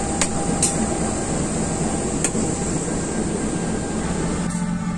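Diesel-electric locomotive standing at idle, a steady mechanical running noise with a low hum. A few sharp clicks sound near the start and about two seconds in.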